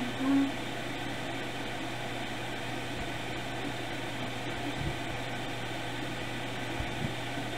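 Steady background hum and hiss, with a brief low-pitched sound right at the start and a couple of faint knocks about five and seven seconds in.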